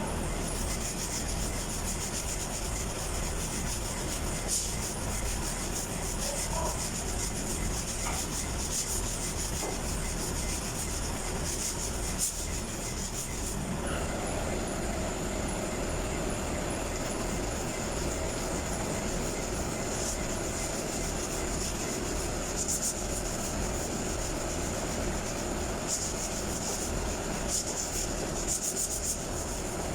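Power sander running steadily against a car body panel during paint preparation.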